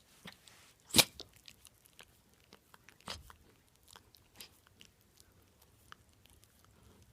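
Long-haired miniature dachshund sneezing: a sharp, loud sneeze about a second in and another about three seconds in, with small mouth clicks and smacks scattered between.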